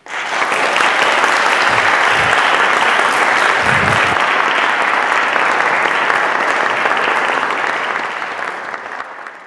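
Audience applauding. The applause starts suddenly and fades out near the end.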